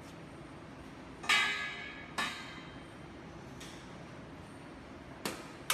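Metal core shaft set down across the steel V-cradles of a roll stand: a ringing metal clank about a second in and a second, shorter one soon after. Two sharp metallic clicks near the end.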